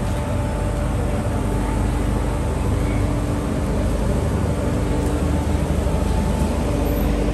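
Steady street noise: a low rumble with a faint, steady machine hum running underneath.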